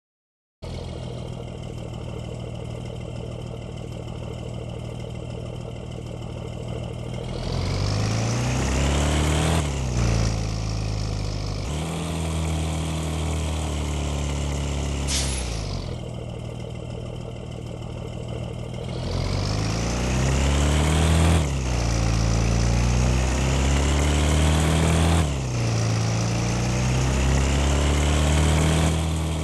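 Bus engine running steadily, then rising in pitch as it accelerates and dropping back at each gear change, several times over. A short hiss of air sounds about halfway through.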